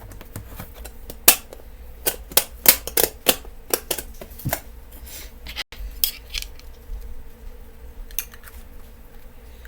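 Small metal putty tins and their lids clicking and clinking as they are closed and handled: a quick run of sharp clicks in the first half, then only a few scattered ones.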